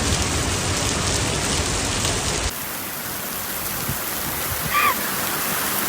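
Steady rain falling, a dense even hiss. About two and a half seconds in it changes abruptly and the low rumble drops away, and a brief high-pitched sound comes near the end.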